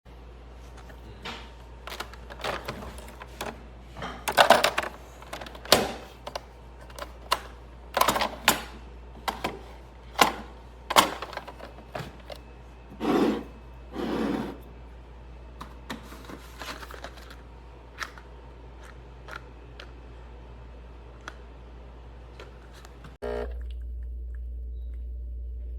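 Clicks and knocks of a plastic capsule espresso machine being handled, with a short scraping twice partway through. Near the end the machine starts up with a steady electric hum, its pump beginning to run.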